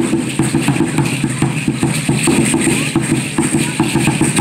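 Aztec dance music: an upright huehuetl drum beating a fast, steady rhythm, with the shaking of the dancers' leg rattles.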